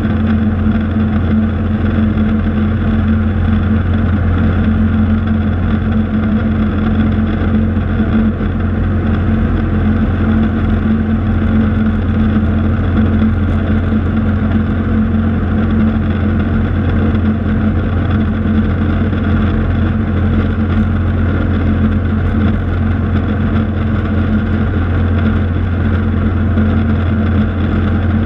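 Cessna 182's piston engine and propeller running steadily in flight, heard from inside the cockpit as an even, loud drone.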